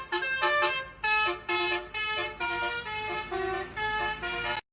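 Telolet horn on a bus: several horns sounding together in a quick tune of short chorded notes. It cuts off abruptly near the end.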